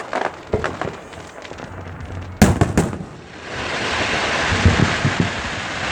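Fireworks going off: scattered crackles, then two sharp bangs about two and a half seconds in, followed by a continuous crackling hiss for the rest of the time.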